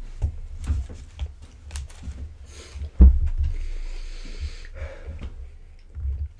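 Close, breathy sniffing at a Pop-Tart held up to the nose, a long sniff running for over a second just after the midpoint. Soft bumps and handling noise throughout, with one sharp thump about three seconds in.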